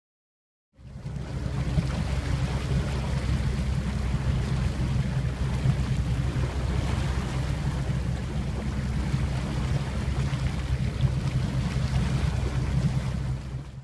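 Maxum 2300 motorboat's engine running steadily under way, a low hum under the rush of wake water and wind on the microphone. It starts abruptly about a second in and cuts off at the end.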